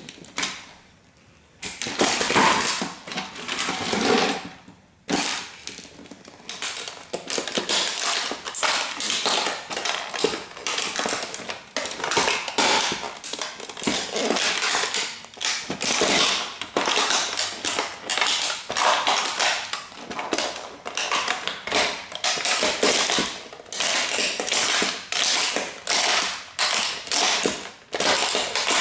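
Red model Bugatti toy car being crushed under the soles of Dr. Martens Jadon platform boots: a dense run of crackling, snapping and creaking of its body and parts as it is stepped on and ground down. After a short lull near the start the cracking runs on almost without a break.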